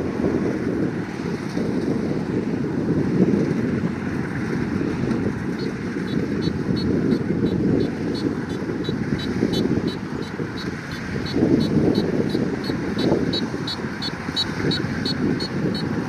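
Kubota combine harvester's diesel engine and threshing machinery running steadily as it cuts rice. A rhythmic high ticking, about three times a second, comes in about six seconds in.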